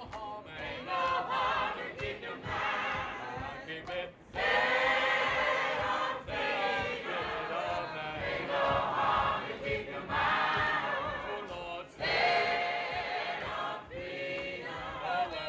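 A choir of voices singing a gospel-style song in long phrases, with brief pauses between them.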